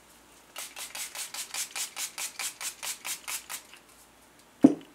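Milani Make It Last setting spray's pump-mist bottle spritzed over and over, about five short hissing puffs a second for some three seconds. Near the end comes one sharp thump, louder than the spray.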